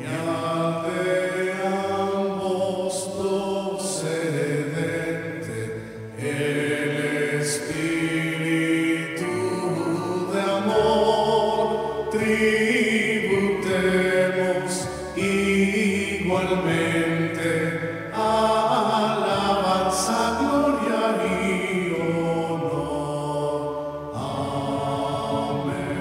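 Slow sung devotional chant with musical backing, in phrases of a few seconds with long held notes.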